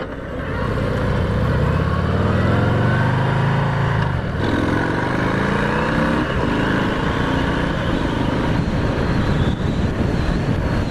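Harley-Davidson FXDR's Milwaukee-Eight 114 V-twin accelerating under way, its pitch rising for about four seconds. There is a brief break as it shifts up, then it rises again and settles to a steady pull.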